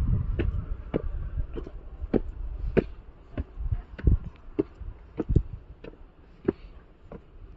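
Footsteps on concrete steps and a dusty path, about one and a half steps a second, with a low rumble in the first few seconds.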